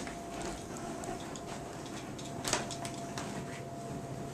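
Quiet household room noise: a faint steady whine with scattered light clicks, and one sharper knock about two and a half seconds in.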